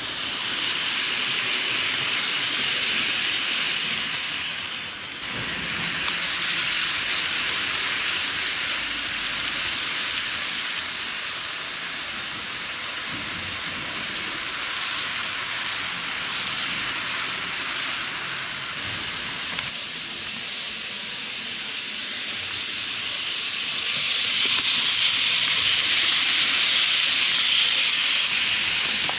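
N gauge model trains running on the track: a steady high hiss of the small motors and wheels on the rails. It shifts in level a few times and gets louder near the end as a train passes close.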